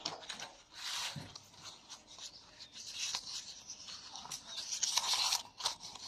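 Banana leaves rustling and crinkling as they are folded by hand into a wrapped parcel, with irregular small crackles that get busier in the second half.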